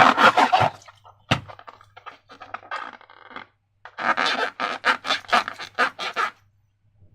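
Slime being squeezed and worked by hand: two long bursts of quick, sticky crackling squelches, one at the start and one about four seconds in. Sparser crackles fall between the bursts, and a single low thump comes about a second in.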